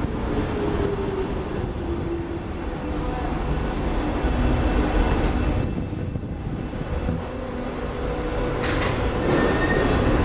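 Paris Métro train running through the station: a loud, steady low rumble with faint whining tones, and a short high squeal about nine seconds in.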